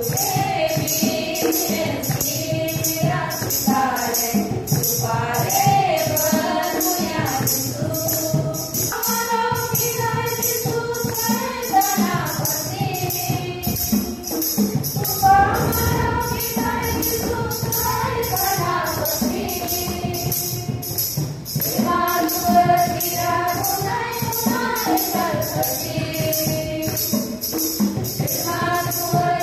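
A group of women singing a hymn together, with a jingling percussion instrument shaken in a steady beat under the singing.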